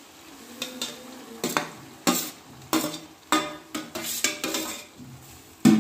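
Chopped spinach dropped into a steel kadhai of masala, then a metal spatula stirring and scraping in the pan. The spatula knocks against the pan about every half second, with the loudest knock near the end.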